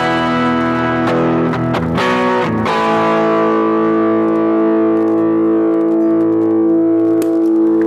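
Guitar played through a Caline C300 with effects on: a few quick strummed chords, then one chord left ringing and slowly dying away for about five seconds.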